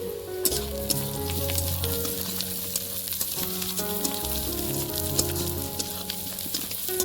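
Food frying in hot oil, a dense sizzle with many sharp crackles that starts up loudly about half a second in, as if ingredients were just put into the pan, with stirring.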